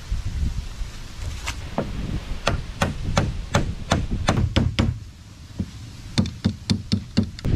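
Hammer blows on a boat's wooden frame, struck in quick runs of about three a second. There is a short pause about five seconds in before a second run.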